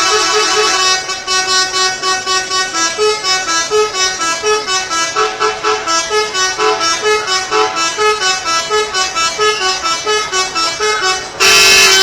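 Bus 'telolet' musical horn, a multi-tone air horn, playing a tune: a held chord, then a run of short notes about four a second, then a louder held chord near the end.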